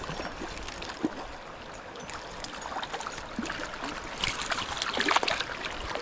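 Shallow river water flowing, with a hooked trout splashing at the surface as it is drawn in to the bank; the splashing is heaviest from about four seconds in.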